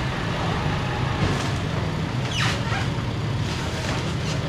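A vehicle engine idling steadily, with a short falling squeak about two and a half seconds in.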